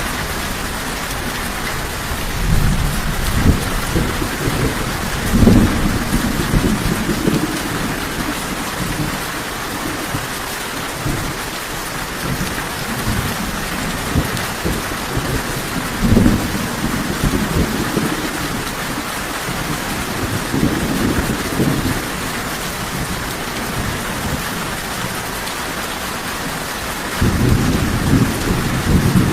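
Steady rain hissing throughout, with low rolling rumbles of thunder that swell up several times and build strongly near the end.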